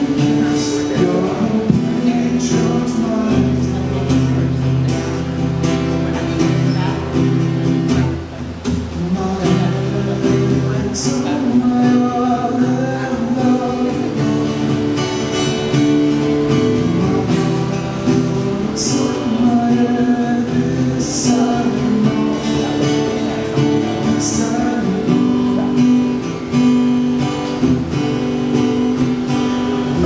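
A man singing while strumming a cutaway acoustic guitar, an acoustic cover song performed live.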